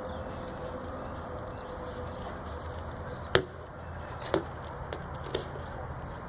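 Four short, sharp knocks over about two seconds, the first the loudest, over a steady background hiss.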